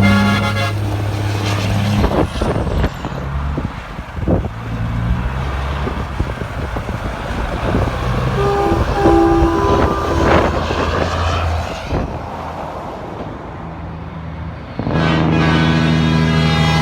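Heavy trucks passing on a highway, with engine and tyre noise, and a brief horn toot about halfway. About fifteen seconds in, a loud truck air horn sounds and holds, playing several notes at once.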